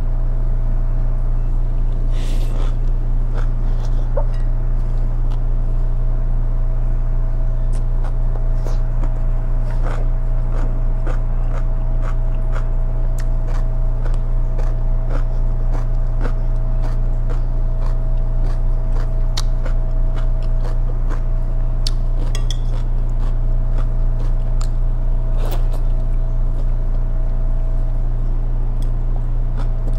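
Close mouth sounds of someone eating: scattered small wet clicks and smacks of chewing and slurping strands of food, with now and then a light clink of chopsticks. A loud steady low hum underlies it all, with a faint steady whine above it.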